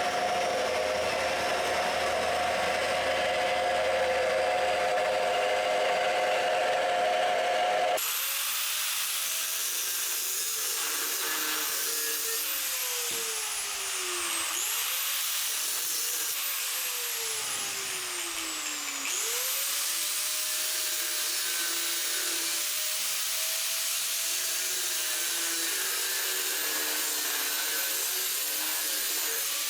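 Electric power tool running continuously in the shop, most likely on the tie-rod tube. After a sudden change about eight seconds in, its pitch jumps up and then sags slowly twice, as if bogging under load and recovering, then holds steady.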